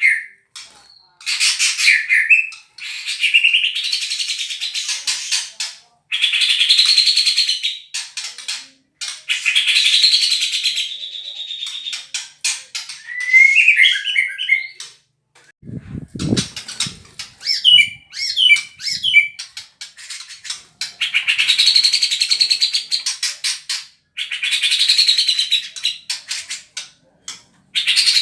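White-rumped shama (murai batu) singing in repeated rapid-fire 'tembakan' bursts in the style of the cucak jenggot: about eight loud, dense, buzzing phrases of roughly two seconds each, with short twittering notes between them. A dull thump comes about halfway through.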